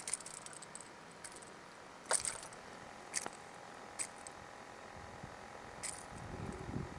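Hard plastic crankbait and its metal treble hooks clicking and jingling a few separate times while being worked out of a small largemouth bass's mouth by hand, with a soft low rustle near the end.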